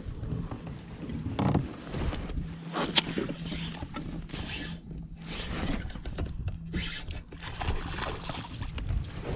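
Baitcasting reel being cranked as a small bass is reeled in to the kayak, with a few sharp clicks early on. Near the end the hooked fish splashes at the surface.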